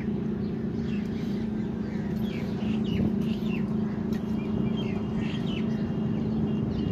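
A steady low machine hum, with birds chirping in short calls above it.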